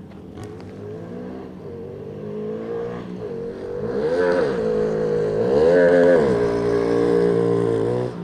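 Small motorbike engine running, revved up and back down twice around the middle.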